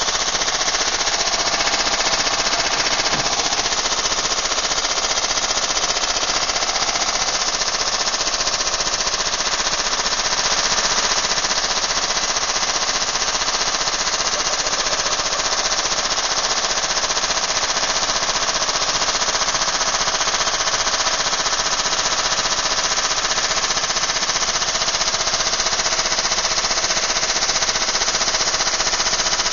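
Washing machine being run to destruction, banging and rattling rapidly and without a break at a steady loud level.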